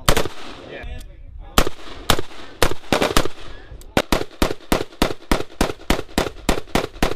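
Gunfire from short-barrelled M4-style carbines in semi-automatic: a shot right at the start, a few scattered shots, then from about four seconds in a steady rapid string of single shots, about four a second.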